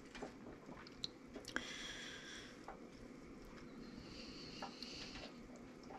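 Faint scattered small clicks and soft wet squishing as blanched, slimy okra slices are picked up and set down by hand on a metal wire cooling rack.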